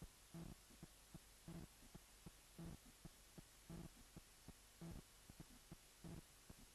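Faint, regular low thumping: a stronger pulse about once a second with softer ticks between them, like a heartbeat.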